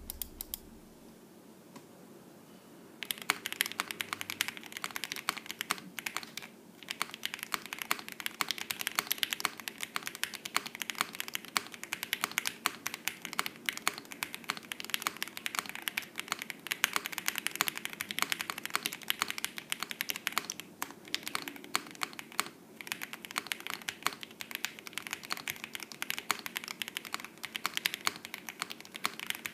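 Typing on a QK65 R1 aluminium mechanical keyboard in a clack build: lubed Jwick Black linear switches on an FR4 plate with gasket socks, no PE foam, lubed Owlab stabilizers. Fast, steady keystrokes start about three seconds in and run on with a couple of short pauses.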